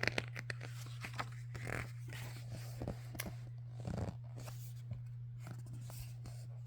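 Steady low hum with faint scattered clicks and short rustles.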